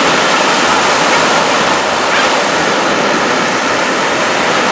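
Ocean surf breaking on the beach: a steady, loud rush of waves.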